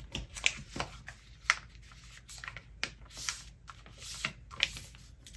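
A sheet of paper rustling and crackling as a flap is folded over and the crease pressed flat by hand. There are scattered sharp ticks, with a few longer swishes where fingers slide along the fold.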